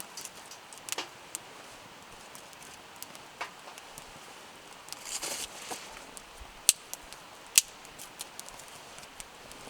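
Wood campfire crackling: scattered sharp pops and snaps, two of them loud near the end, over a steady faint hiss.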